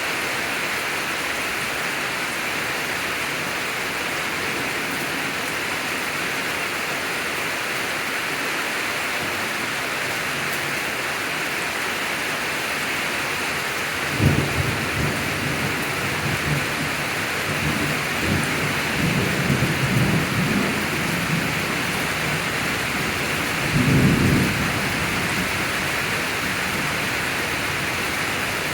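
Steady rain hiss through a thunderstorm. About halfway in, a sudden thunderclap breaks out and rolls on in rumbles for several seconds, and a second loud peal of thunder comes near the end.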